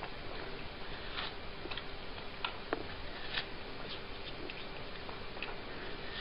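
A cat biting and chewing a slice of watermelon: small irregular clicks over a steady hiss.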